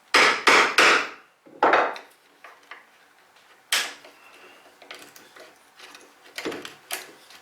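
Hammer striking a mortise chisel, chopping into soft pine: three quick blows, another a moment later, then a few spaced, lighter knocks and small wooden clicks.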